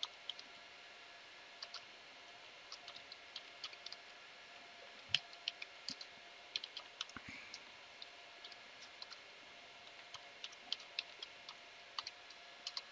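Computer keyboard keys being typed in irregular short runs of clicks with pauses between, one harder keystroke about five seconds in the loudest, over a faint steady hum.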